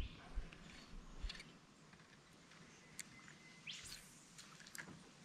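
Quiet creekside ambience with faint bird chirps and a few light ticks, and a short rising swish about four seconds in.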